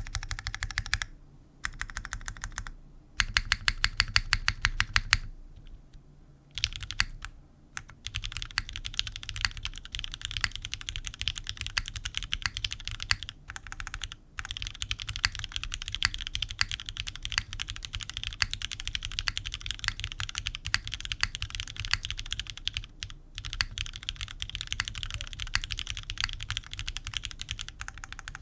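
Typing on a Sangeo60 gasket-mounted mechanical keyboard with Cherry MX Black linear switches, an aluminium plate, no foam and GMK keycaps. It opens with a few short bursts, then a quick run of louder, evenly spaced key presses about three seconds in. From about eight seconds there is steady fast typing with a couple of brief pauses.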